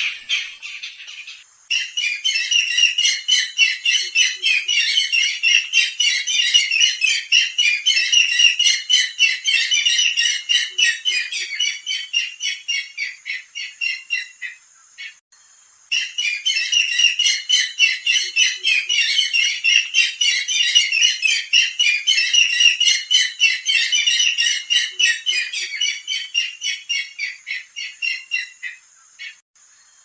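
Barred rail calling: a rapid, harsh series of high repeated notes in two long bouts, each one slowing toward its end, with a short break between them around the middle.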